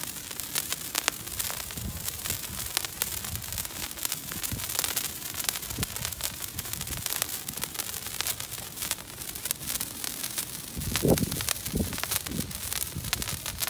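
Handheld spray firework burning on its stick: a steady hiss of spraying sparks with constant fine crackling, and a brief low rumble about eleven seconds in.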